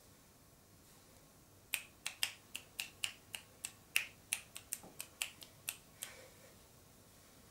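Fingers of both hands snapping in a quick rhythm, about four snaps a second, starting nearly two seconds in and stopping about six seconds in.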